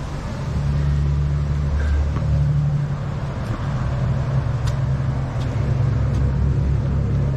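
Steady low rumble, shifting in strength, with a few light taps about halfway through from a person exercising on asphalt.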